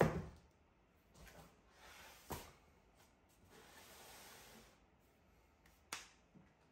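Hard plastic panels of an IFAM Easy Wave bookshelf being handled and slid against one another, a loud knock at the start, then soft scraping with two sharp plastic clicks, about two seconds in and near the end.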